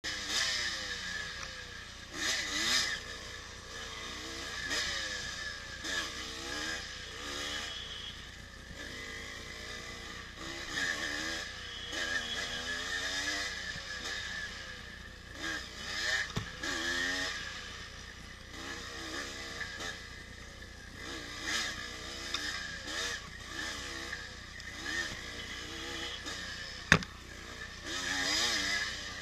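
1984 Yamaha IT200's two-stroke single-cylinder engine revving up and down over and over as it is ridden, its pitch rising and falling with each throttle opening and gear change. A single sharp knock comes near the end.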